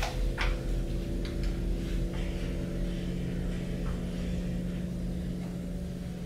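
Low, steady droning hum made of several held tones. Two sharp clicks come right at the start, followed by faint soft scuffs.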